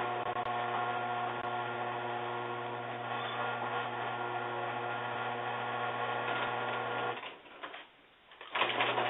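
A steady machine hum with a buzzy whir and several fixed tones. It fades out about seven seconds in, goes nearly silent for about a second, then comes back.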